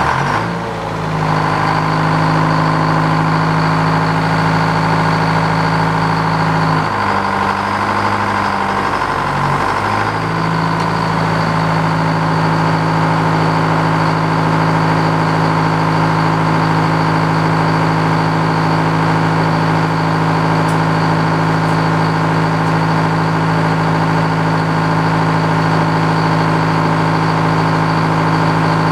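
Frick OO circular sawmill running: its power unit and spinning blade give a loud, steady drone with a thin high whine over it. About seven seconds in the drone drops in pitch for about three seconds, then comes back up.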